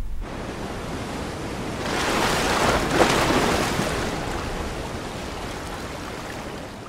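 A sea wave washing up over a sandy beach: the surf swells about two seconds in, peaks, then slowly fades as the water runs back.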